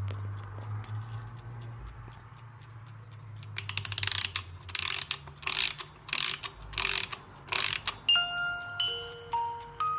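Antique clock mechanism ticking faintly, then from about halfway a run of loud ratcheting strokes, about two a second, as the mechanism is wound by its key. Near the end the vintage music box starts plucking single clear notes.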